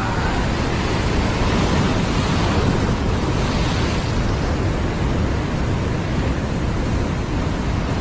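Heavy ocean surf breaking and washing over a rock shelf: a steady, loud rush of whitewater with no let-up.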